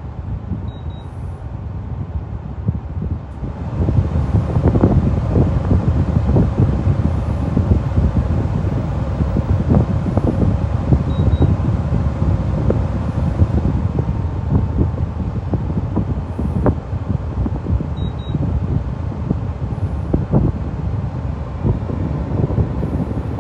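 DuraComfort portable air conditioner running, a steady fan and airflow noise that gets louder and fuller about three and a half seconds in.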